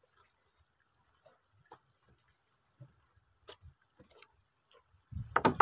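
Faint scattered drips and ticks of water, then about five seconds in a rapid, loud series of knocks starts: net fishermen striking their boat to drive fish towards their nets.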